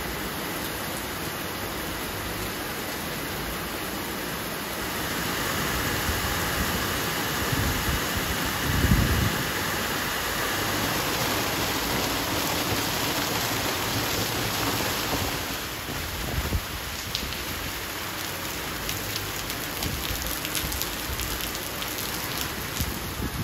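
Heavy rain pouring onto paving, with rainwater gushing and splashing from a downpipe outlet onto brick pavers. A brief low thump about nine seconds in.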